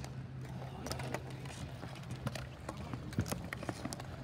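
Ball hockey play: sticks clacking and the ball knocking on a hard court, a string of irregular sharp clicks over a steady low hum.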